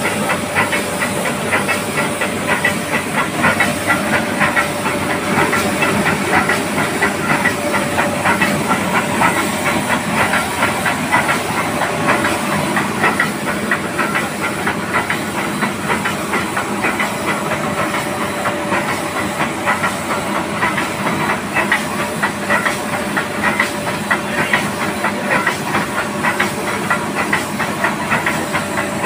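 A Nilgiri Mountain Railway steam locomotive hissing steadily as steam escapes around its cylinders and running gear. A rapid crackling sputter runs over the hiss, with a faint steady tone under it.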